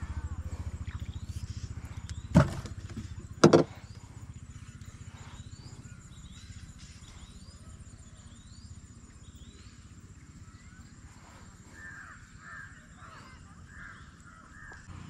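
Two sharp knocks about a second apart, a little over two seconds in, over a low rumble that fades in the first few seconds. Birds call throughout: repeated short rising chirps, and a run of louder calls near the end.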